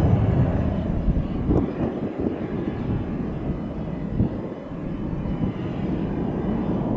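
Business jet engine noise: the low rumble of a jet climbing away after take-off fades and breaks off about a second and a half in. It gives way to the quieter, steady sound of a Gulfstream G650's engines at approach power, slowly growing louder as it nears.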